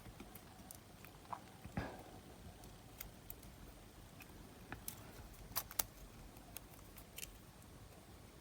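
Faint, scattered small clicks and taps, about eight in all, the sharpest pair a little before six seconds in: small parts of a cassette player's tape mechanism being handled and fitted by hand.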